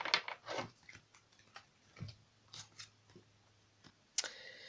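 Quiet, scattered clicks and taps of oracle cards being handled and drawn from the deck, with a sharper click near the end followed by a brief rustle as a card is brought out over the spread.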